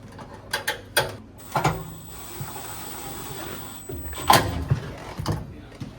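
Metal knocks and clicks from parts and tools being handled on an HVAC unit during reassembly. Several sharp knocks come in the first two seconds, a steady hiss fills the middle, and the loudest knock falls about four seconds in.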